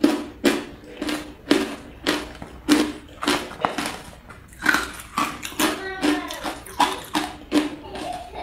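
Mouthfuls of matcha-powdered ice being crunched between the teeth, a crisp crunch about two to three times a second.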